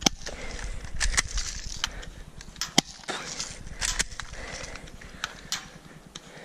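Airsoft guns firing in an exchange: about ten sharp snaps at uneven intervals. A low rumble on the microphone fades out about halfway through.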